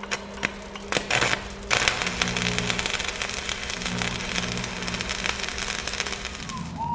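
Sound effects for an animated flaming logo: a few sharp hits, then a steady crackling rush of fire over a low hum that cuts off near the end.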